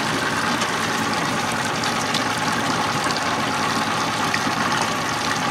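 A boat's motor running steadily with water splashing; the level stays even and nothing stands out.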